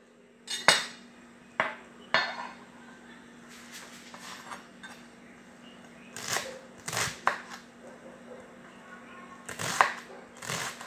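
Kitchen knife chopping a red onion on a wooden cutting board: irregular sharp knocks of the blade hitting the board, some in quick pairs, over a faint steady hum.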